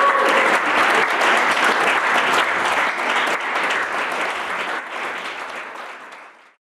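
Audience clapping and applauding, with a brief cheer at the very start; the applause dies away over the last couple of seconds and stops.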